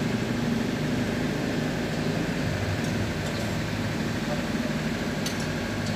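Heavy engine running steadily at idle, an even low drone, with a couple of faint clicks about five seconds in.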